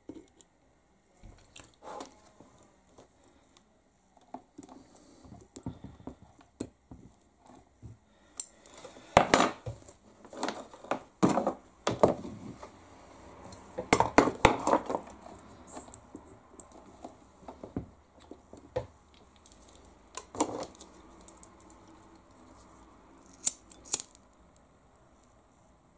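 Small workbench handling noises: wires, a soldering iron and small tools being moved and set down, with scattered clinks, taps and rattles, busiest in two short spells. A couple of sharp clicks come near the end, as a lighter is lit to shrink heat-shrink tubing.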